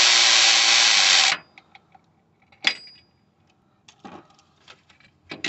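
A power tool spinning a Torx socket on a long extension, running out the loosened tensioner bolt, stops about a second and a half in. After a pause comes one sharp metallic click, and a few light tool clicks follow near the end.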